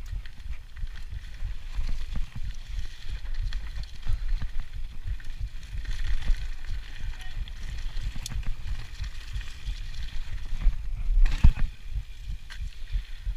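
Mountain bike descending a rutted dirt trail: a steady, uneven rumble of tyres, frame rattle and wind on the camera's microphone, with a few knocks and one heavy knock about eleven seconds in.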